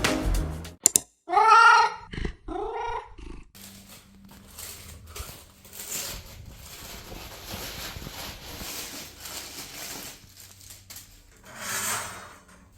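A cat meowing twice in quick succession, two short rising-and-falling calls, followed by faint clicks and rustling.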